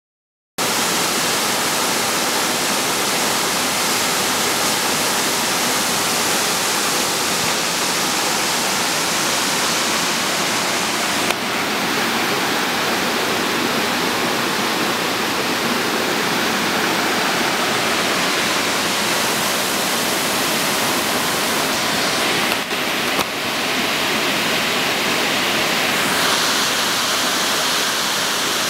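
Waterfall and cascading mountain stream: a steady, loud rush of water pouring over rock. It starts suddenly about half a second in and shifts briefly in tone near 11 and 23 seconds.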